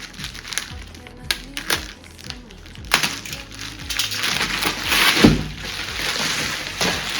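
Packaging crinkling and crackling as an item is unwrapped by hand, with a few sharp clicks first and a longer, louder stretch of crackling from about three seconds in, over background music.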